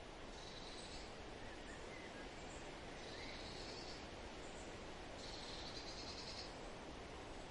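Outdoor ambience of steady background hiss, with a high-pitched trill about a second long heard three times and a few faint short chirps.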